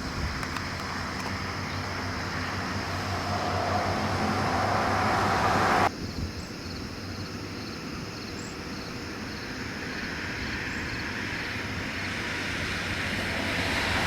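A vehicle's engine hum under a rushing noise that builds up steadily. It cuts off suddenly about six seconds in, then starts building again.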